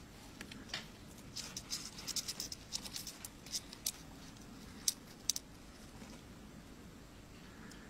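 Small, dry scratching and clicking in quick irregular clusters, most of it in the first five seconds: a scorpion and a beetle scrabbling, their legs and claws scraping.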